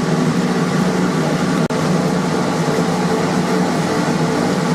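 Steady droning hum of a blower feeding air to a coal forge fire, with a split-second gap about a second and a half in.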